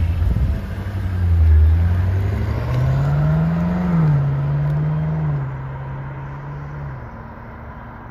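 BMW M5 F90's twin-turbo 4.4-litre V8 on its stock exhaust, accelerating away. The engine note climbs, drops at an upshift about four seconds in, then fades as the car drives off into the distance.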